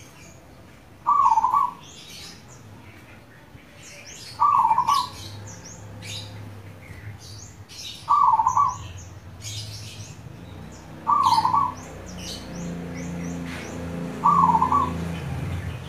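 Zebra dove (perkutut) singing its cooing song: a short burst of quick notes repeated five times, about every three seconds. Small birds chirp high-pitched in the background, and a low hum comes in about a third of the way through.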